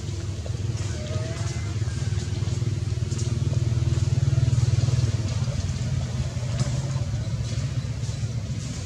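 A motor engine running steadily with a low, pulsing hum, growing louder to a peak about four to five seconds in and then easing off.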